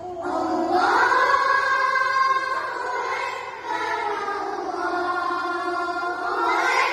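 A group of boys chanting a line of the adhan (Islamic call to prayer) together in long, ornamented held notes, following a muezzin's hand cues through the melodic modes. The pitch climbs about half a second in, holds, dips slightly in the middle, and rises again near the end.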